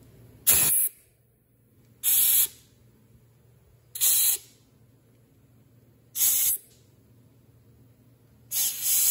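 Short blasts of a compressed-air blow gun blowing debris off an engine block deck and out of the cylinders: five hissing bursts about two seconds apart, the last a quick double blast.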